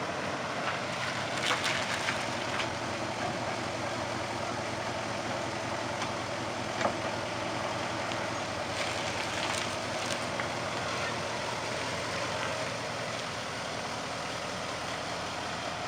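1964 Pontiac Bonneville hearse's V8 engine running at low speed as the car rolls slowly across the yard, with a few sharp clicks on top.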